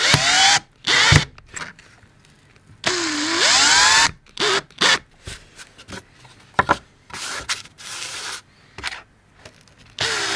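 Power drill driving screws into 3D-printed PLA standoffs on a canvas, in a few short runs near the start, about three seconds in and at the very end. The motor whine dips and then rises in pitch during each run. Between runs there are clicks and knocks of the plastic parts being handled.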